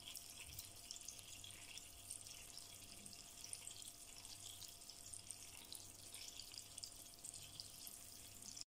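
Floured chicken fillet pieces frying in melted butter in a pan: a faint steady sizzle with many small crackling pops, cutting off just before the end.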